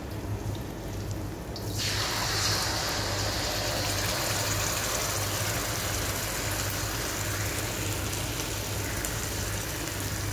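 Ketchup poured into hot oil and fried garlic in a wok, sizzling: it starts suddenly about two seconds in and then sizzles steadily.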